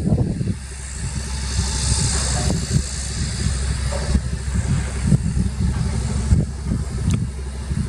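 Heavy diesel earthmoving machinery running steadily, with irregular clanks and knocks over the engine's low rumble.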